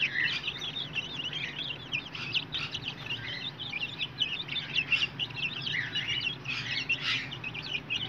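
A flock of chicken chicks, about twelve days old, peeping continuously in many overlapping short, high chirps.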